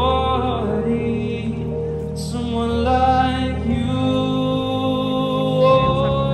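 A street busker singing into a microphone through a small portable amplifier, holding long notes with a slight waver in pitch over a steady backing.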